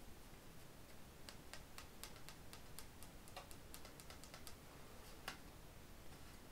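Faint, irregular light clicks, about fifteen over four seconds and ending with one sharper click: tarot cards being handled and shuffled.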